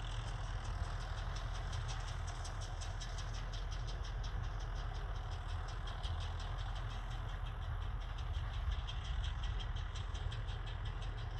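Belarus tractor's diesel engine running steadily while driving a New Holland 644 round baler, with a fast, even clicking from the machinery on top.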